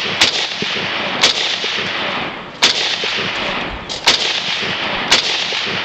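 SKS semi-automatic rifle (7.62×39 mm) fired five times at a steady pace, a shot every second or so, over a steady hiss.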